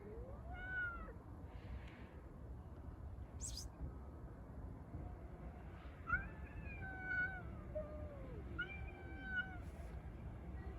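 Street cats yowling at each other in a fight: several long, wavering calls that rise and fall in pitch, with a short sharp noise in the middle.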